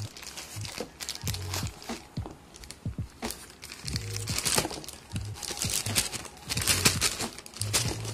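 Plastic wrapping crinkling and cardboard packing rustling as plastic-wrapped mixer-grinder jars and a lid are handled and lifted out of their box, in quick irregular bursts. Background music plays underneath.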